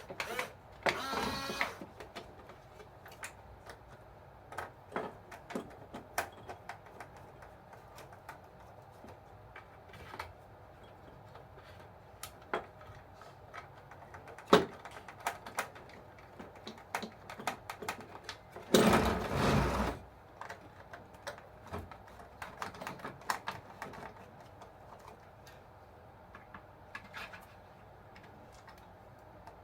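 Scattered small clicks and taps of hands working on an RC toy bulldozer's plastic and metal parts, with two brief whirring bursts about a second long, one near the start and one about two-thirds in.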